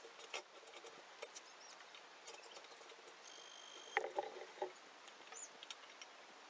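Faint scattered clicks, taps and rustles of plastic rope being passed around and knocking against an aluminium chair frame, sped up four times. A brief high steady tone sounds about three seconds in, followed by a short cluster of small knocks.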